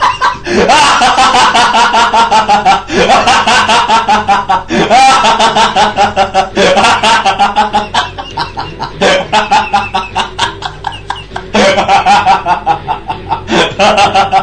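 Laughing sound effect: a high-pitched voice in rapid 'ha-ha-ha' pulses, starting a new burst of laughter about every two seconds.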